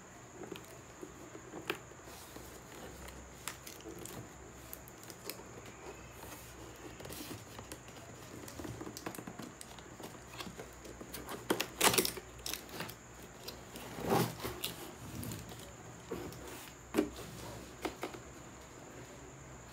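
Cardboard laptop shipping box being handled: scraping, rustling and tapping on the cardboard, with a few louder sharp knocks in the second half.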